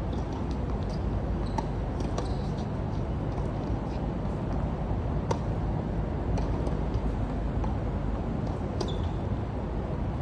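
Tennis balls struck by racquets and bouncing on a hard court: a few scattered sharp pops over a steady low background rumble.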